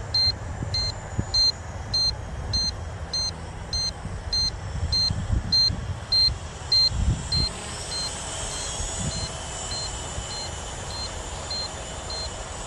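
The drone's remote controller beeps steadily about twice a second, its alert while return-to-home is engaged, over wind rumbling on the microphone. About two-thirds of the way in, a faint high whine from the quadcopter's propellers grows in as the drone comes back.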